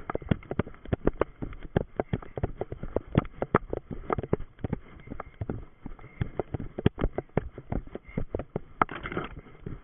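A runner's feet landing in quick, irregular thuds on the forest floor, with twigs and brush rustling and snapping against the legs and body.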